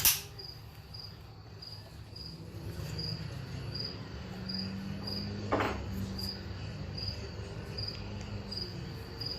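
A cricket chirping in an even rhythm, about one and a half high chirps a second, over a low steady hum. A sharp click right at the start and another about five and a half seconds in are the loudest sounds.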